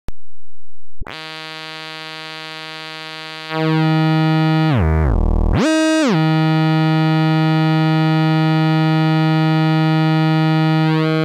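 Software emulation in Pure Data of a Roland SH-101 oscillator (VCO) sounding a steady, low synthesizer tone. It gets louder about three and a half seconds in. About halfway through, its pitch swoops down and glides back up as the frequency, range and portamento controls are moved, then it holds steady.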